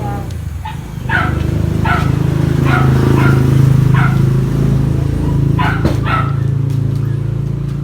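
A dog barking repeatedly, about two barks a second, over a steady low hum that builds about a second in and fades near the end.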